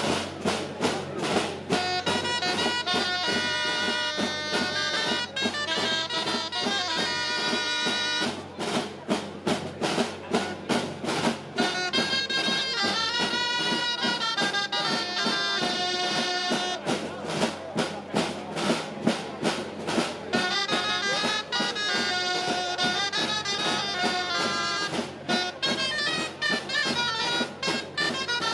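Background music with a steady beat and a melody.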